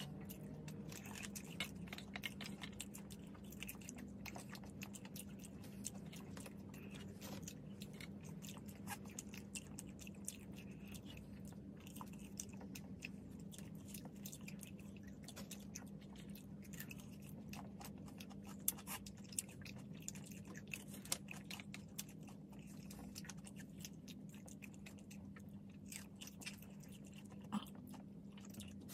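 Close-miked chewing and biting of french fries and cucumber slices: many small wet, crunchy mouth clicks, over a steady low hum.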